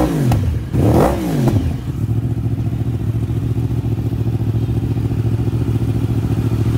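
Yamaha R1 crossplane inline-four through an Akrapovič exhaust, blipped so the revs rise and fall, then settling into a steady idle about two seconds in.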